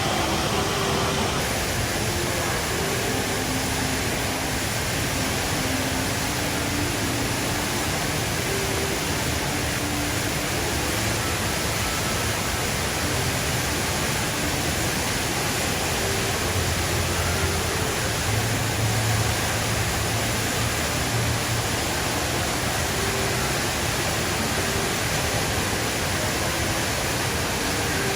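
Steady rush of falling water from the Rain Vortex, a tall indoor waterfall.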